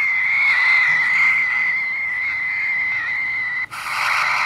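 SI4732 pocket radio's speaker on a weak AM-band station: a steady high whistle, wavering slightly, over static hiss. Near the end the radio is tuned off the station and the sound turns to louder rushing static, cut by brief dropouts as the frequency steps.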